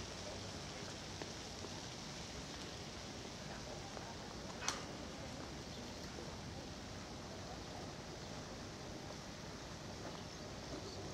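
Steady outdoor background hiss with no clear source, broken by one sharp click a little under halfway through.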